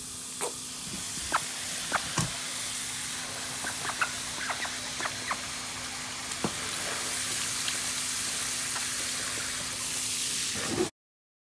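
Garden hose spray nozzle hissing as it showers water into a basin, with scattered small splashes and ticks of water. The sound cuts off abruptly near the end.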